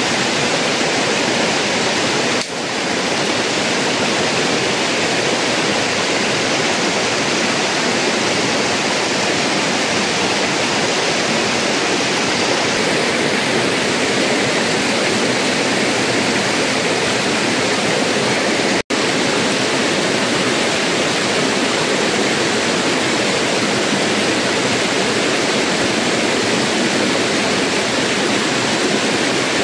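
Shallow rocky stream rushing over stones, a steady, loud hiss of flowing water with one momentary dropout about two-thirds of the way through.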